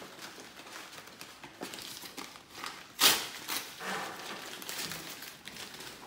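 Brown kraft paper wrapping being torn and crumpled by hand, with one loud, sharp rip about three seconds in.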